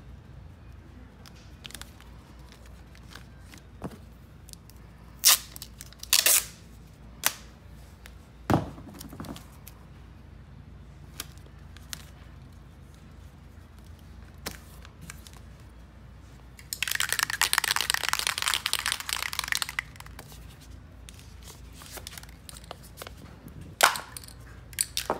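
Blue painter's tape being torn and pulled from the roll and pressed down: scattered sharp rips and crinkles, and one longer crackling pull of about three seconds two-thirds of the way through. A few sharp clicks come near the end.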